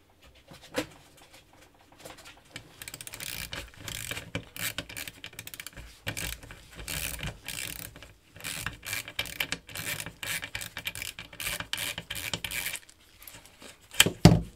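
Torque wrench's ratchet head clicking in fast runs as it is swung back and forth, unscrewing the rifle's handguard screw, with short pauses between runs. A couple of sharp knocks come near the end.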